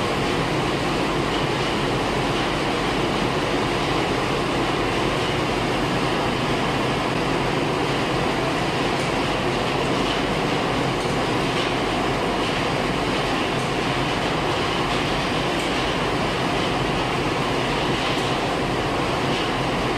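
Feed-mill machinery running with a steady, even noise as chicken feed is mixed and readied to be blown through pipes to the barns.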